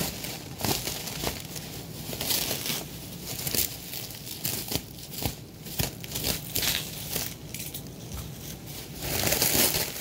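Packaging crinkling and tearing as it is cut open with a knife: irregular rustles and crackles with a few sharp clicks, and a louder stretch of rustling near the end.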